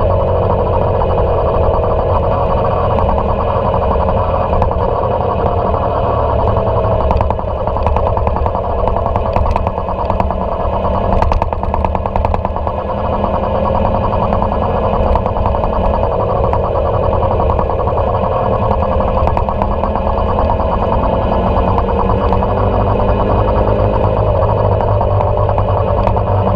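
Motorcycle engine running at a steady cruise, with road and wind noise, echoing off the tunnel walls.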